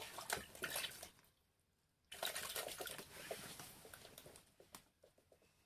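Close handling noise from hands working fishing line and tackle: rustling with small clicks, in two stretches about a second apart.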